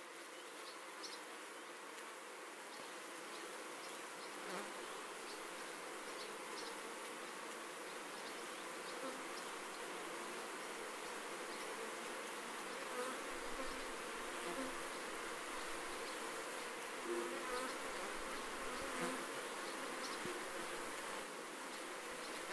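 Many honeybees buzzing as they fly in and out of a hive entrance: a dense, steady hum with single bees' buzzes passing briefly over it. It grows a little louder over the first few seconds.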